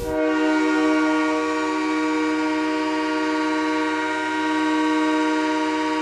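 Tucson Roadrunners' hockey arena goal horn: one long, steady air-horn blast.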